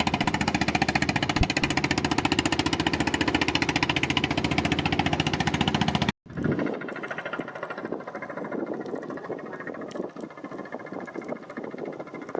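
A fishing boat's engine running close by with a fast, even chugging. About halfway through it cuts off abruptly, and a quieter, irregular background follows.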